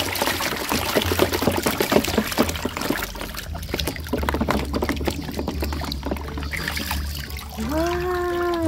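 Water splashing and sloshing in a plastic tub as a hand swishes and scrubs a plastic toy figure under the water, with many quick irregular splashes. Near the end a voice says a drawn-out "wow".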